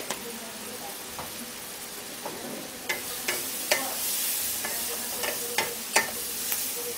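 Wooden spatula stirring and scraping a pointed gourd (potol) mash in a metal kadai while it fries with a steady sizzle. The stirring gets going about three seconds in, with scattered scrapes and knocks against the pan.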